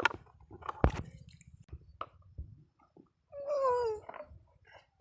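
Two sharp knocks, then about three seconds in a drawn-out vocal cry that falls in pitch.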